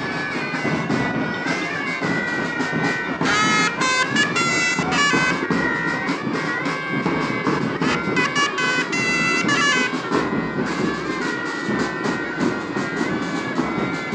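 Pipe band playing: bagpipes sounding a melody over their steady drones, with marching drums beneath.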